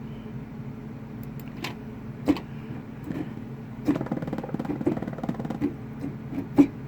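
Computer mouse clicks while going through settings menus: a couple of single clicks, a quick run of small ticks in the middle, and one louder click near the end, over a steady low hum.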